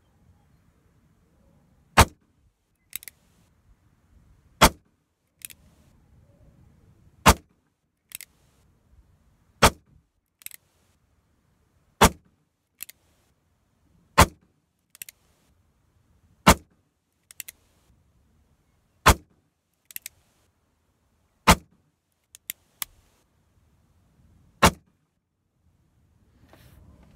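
Chiappa 17-10 single-action revolver in .17 HMR fired ten times, one shot about every two and a half seconds, emptying the cylinder. Each loud report is followed less than a second later by a fainter sharp crack.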